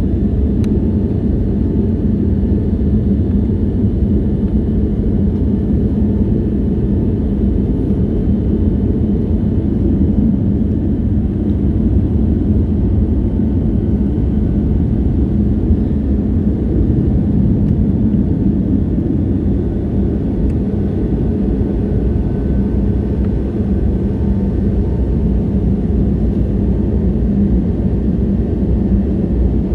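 Airbus A320neo engines and airflow heard from inside the passenger cabin: a loud, steady low rumble with a constant hum.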